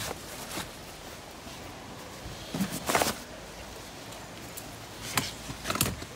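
Fabric bags and camping gear being handled and stowed in the back of a van: rustling with two short bursts of knocks and scuffs, about three seconds in and near the end.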